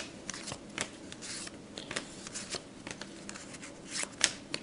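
Cardboard baseball trading cards being handled and flipped through by hand: a run of short card-on-card slides and flicks, with a sharper flick about four seconds in.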